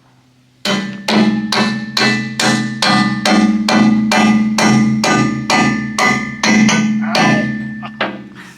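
A hammer striking metal over and over, about three blows a second. Each blow rings with a steady pitch. It starts just under a second in and stops shortly before the end.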